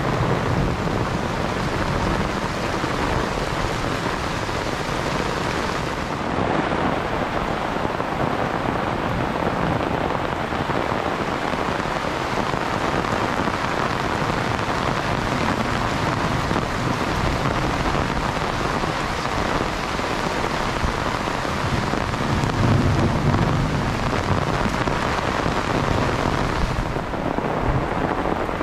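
Rain falling steadily in a dense, even hiss, with a low rumble swelling about three-quarters of the way through.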